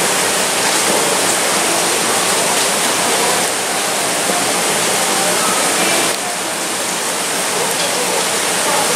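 Steady rushing noise of running water, loud and even throughout, dipping slightly in level about three and a half seconds in and again about six seconds in.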